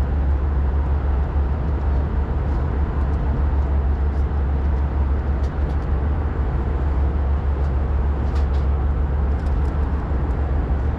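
Airbus A320 cabin noise in cruise flight: a steady low rumble of engines and airflow, with a few faint ticks.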